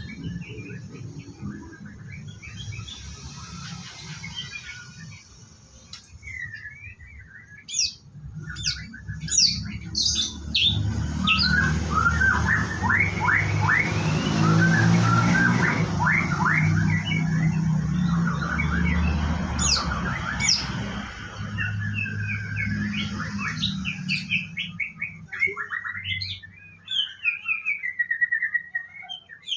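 White-rumped shama singing, quick chirps and whistled phrases, with a low rumble underneath from about ten seconds in until about twenty-six seconds in.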